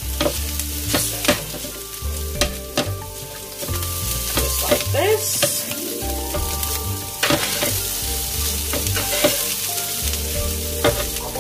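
Spatula chopping and scraping through ground beef, onions and banana peppers on a hot pan: repeated sharp scraping strokes over a steady sizzle.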